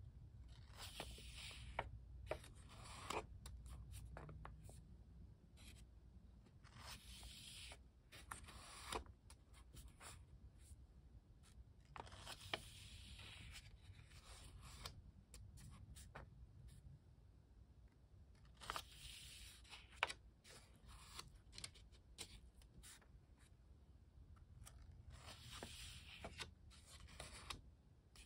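Pages of a Pentalic 4x6 sketchbook being turned by hand, a faint papery swish about every six seconds, five times, with light clicks and rubs of fingers on the paper in between.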